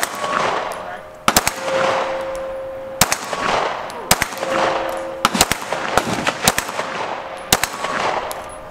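Glock 17 9 mm pistol fired shot by shot, about ten shots with gaps of half a second to a second and a half, each crack followed by a short echo.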